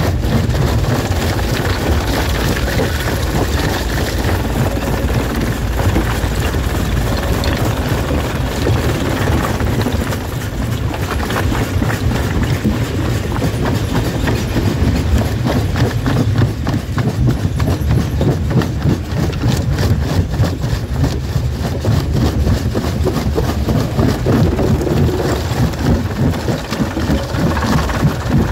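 Rock crusher running under load: a steady, heavy machine drone with a dense clatter of stone knocking and cracking as it is broken. The knocking grows thicker about halfway through.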